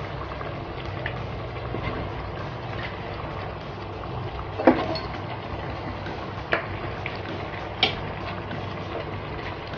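A pot of pakbet vegetable stew simmering on the stove, a steady bubbling hiss, as a handful of yardlong beans goes into the broth. A few short sharp sounds stand out, the loudest about halfway through.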